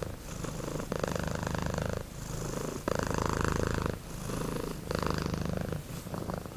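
Domestic cat purring close up, a fast steady rumble that swells and softens in turn, about every two seconds, with each breath in and out.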